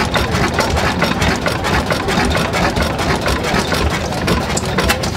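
Vintage horizontal stationary engine with large flywheels running steadily, with an even, rapid beat.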